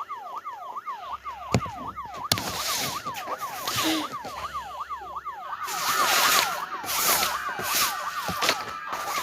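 Electronic siren wailing in a fast yelp, its pitch sweeping up and down several times a second without a break. Sharp clicks come about a second and a half in, and loud bursts of hissing noise sound over the siren in the second half.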